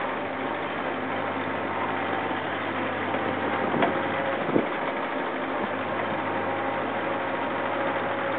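A Jeep driving along a dirt road, heard from on board: steady engine hum with rolling and road noise. There is a brief knock about four and a half seconds in.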